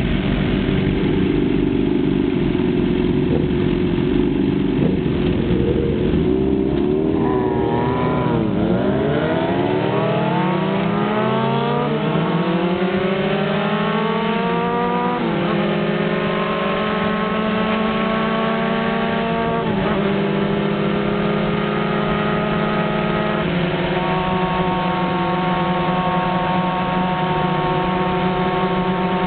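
Sport motorcycle engine heard from the rider's seat: running low at first, then revving up with rising pitch, stepping down at two or three upshifts, and settling into a steady cruise for the last few seconds.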